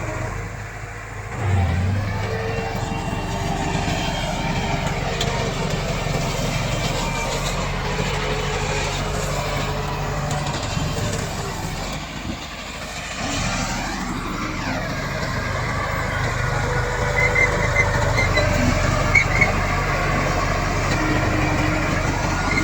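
Komatsu D68 bulldozer's diesel engine running as the machine works, dropping off briefly and picking up again about a second and a half in and again around thirteen seconds in.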